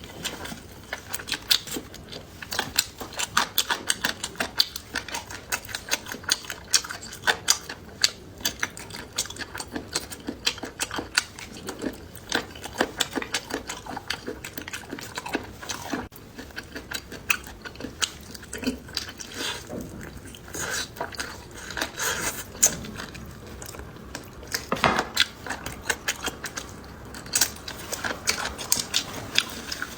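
Close-miked eating: a person biting and chewing crunchy food, a dense, irregular run of crisp crunches.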